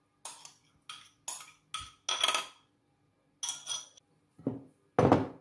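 Cutlery scraping and clinking against a bowl as the dressing is scraped out onto the carrot salad: about ten short, irregular strokes, the loudest near the end.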